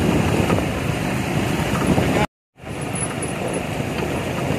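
Road traffic noise with wind on the microphone, then, after a sudden drop-out about two seconds in, the steady running and road noise of a vehicle travelling along the road.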